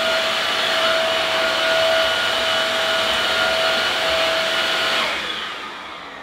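Nilfisk Combi floor washer running: a steady high whine from its motor over a rushing hiss. About five seconds in it is switched off, and the whine falls in pitch and fades as the motor winds down.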